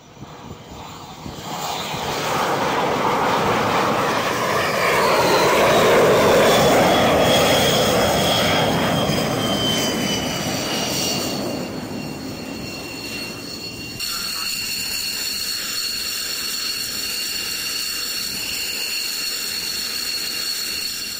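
X-47B unmanned jet's turbofan engine as it lands on a carrier deck. The jet noise swells as it comes in and touches down, then its whine falls steadily in pitch as it rolls out. After a sudden change partway through, a steady high whine while it sits on deck.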